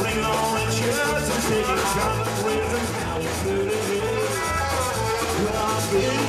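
Live Tex-Mex rock band playing with a steady beat: piano accordion, electric guitars and drum kit.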